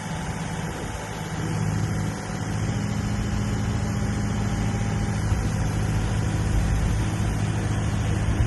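Takeuchi TB228 mini excavator's diesel engine running steadily.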